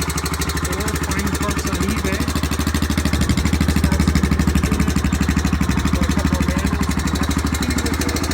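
Honda Foreman ATV's single-cylinder four-stroke engine idling with a steady even beat, growing a little louder midway before settling back.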